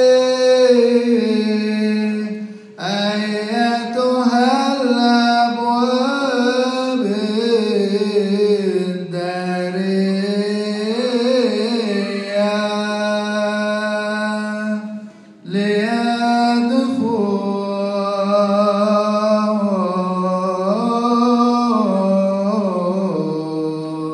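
Coptic Orthodox liturgical hymn chanted unaccompanied as a single melodic line, in long, drawn-out ornamented phrases that waver up and down on each syllable, with short breaks for breath about three seconds and fifteen seconds in.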